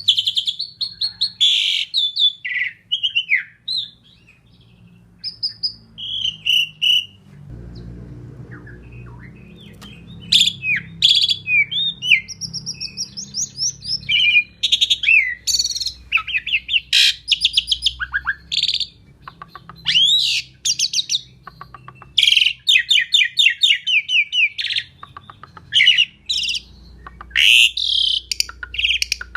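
Starling singing: a busy, varied string of whistles, sliding notes, clicks and rapid rattling phrases, with a faint low rumble in the background from about a quarter of the way in.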